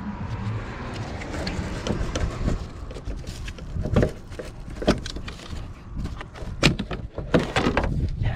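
Scattered plastic clicks and knocks as engine-bay trim covers and their push clips are pried loose and handled, the sharpest few in the second half.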